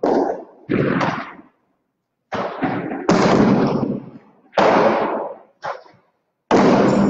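Hard jai alai ball (pelota) striking the fronton's walls and floor during a rally: about seven sharp, loud cracks at an irregular pace, each ringing on in a long echo through the court.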